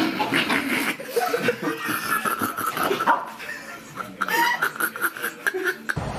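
A small dog making high-pitched sounds as it plays at a man's arm, mixed with the man laughing and chuckling.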